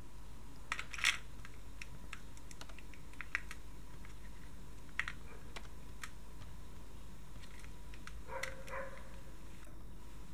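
Scattered small clicks and taps of AA batteries and plastic parts as batteries are loaded into a partly disassembled Canon PowerShot SX100 IS compact camera and its body is handled.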